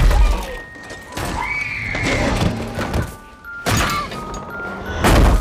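Horror film soundtrack: tense sustained music cut by three loud booming hits, with a brief high, gliding cry about one and a half seconds in.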